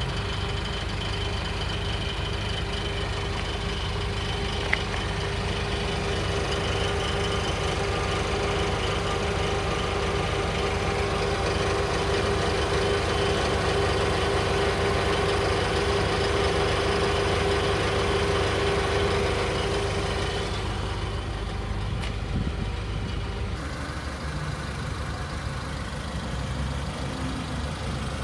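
Air conditioner running with the cooling switched on, making a steady mechanical drone with an abnormal rattling noise. About twenty seconds in the steady whine stops, and a few seconds later the deepest hum drops away and the sound gets a little quieter.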